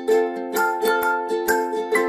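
Background music: a plucked ukulele-like strummed melody with a steady beat, about two plucks a second.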